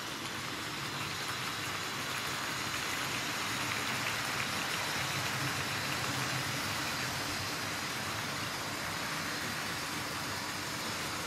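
Tri-ang Hornby 00-gauge model trains running on the layout: the steady rolling rattle of the freight wagons' wheels on the track, including over points and diamond crossings.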